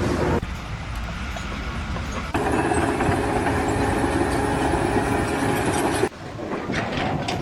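Heavy vehicle and machinery engine noise, a steady low rumble with a steady hum over it in the middle stretch, cut abruptly between several short clips.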